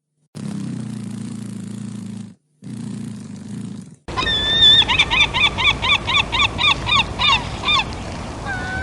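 A cat purring in two short stretches, then after a cut a different animal giving a rapid series of loud, wavering calls, about three a second, ending in one long held call.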